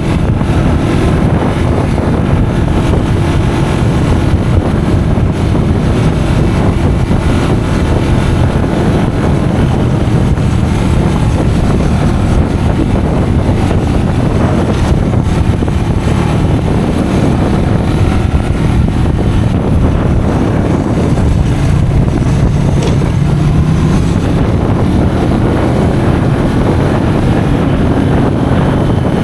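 Custom motorcycle's engine running steadily while riding, with wind noise on the microphone.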